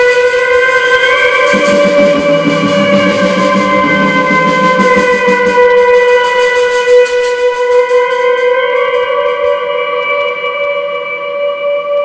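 Live band music: a held, droning electric guitar tone through effects, stepping up in pitch about a second in and again near the ninth second, over drums and cymbals. The drumming thins out and stops after about nine seconds, and the whole sound fades toward the end.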